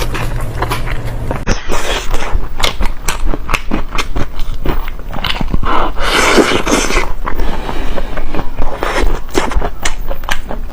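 Close-miked eating: a rapid run of wet smacks, clicks and crunches from biting and chewing food, with a denser noisy patch a little past the middle. A low hum stops abruptly about a second and a half in.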